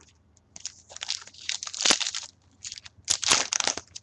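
Foil trading-card pack wrapper crinkling and tearing as it is handled and opened, in irregular rustling bursts with a short pause in the middle.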